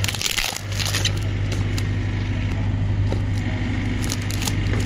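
Cardboard box flaps being pulled open by hand, a rustling scrape in the first second and a few light crackles later, over a steady low engine hum.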